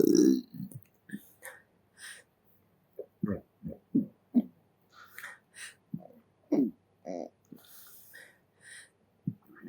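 The end of a long, loud burp dies away in the first half second. A string of short, small burps follows, some falling in pitch, with breaths and mouth clicks between them, all close to the microphone.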